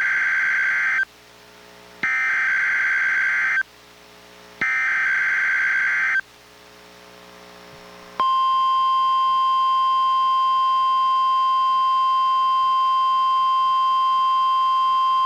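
NOAA Weather Radio Emergency Alert System signal opening a Required Monthly Test: three bursts of SAME digital header data, each a buzzy warbling screech about a second and a half long with a second's gap between them, then, about eight seconds in, the steady 1050 Hz warning alarm tone starts and holds.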